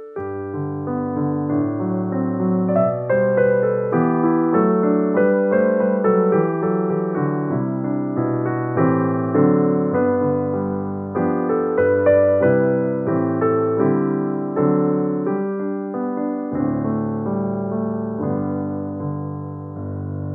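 Digital piano playing slow, chordal, hymn-like music as an instrumental call to prayer. A held chord sounds through the last few seconds.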